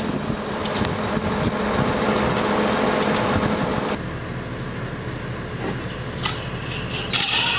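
An engine running steadily with a constant hum. The sound turns quieter and hazier about four seconds in, and a few sharp clicks come near the end.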